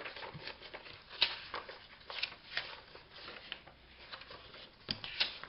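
Paper pages being handled and sorted: irregular soft rustles and light taps as sheets are shuffled and laid down.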